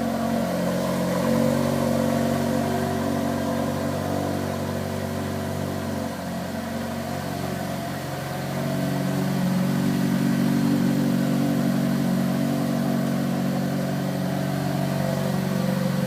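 Opel Astra J OPC's 2.0-litre turbocharged four-cylinder heard through its stock exhaust, holding a steady note. It eases off slightly around six to eight seconds in, then runs louder from about nine seconds on.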